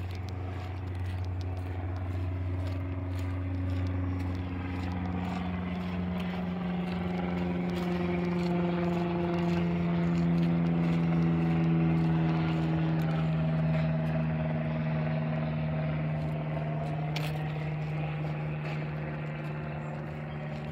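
Airplane passing overhead. Its engine noise grows louder to a peak about halfway through and then fades, with tones slowly sliding in pitch.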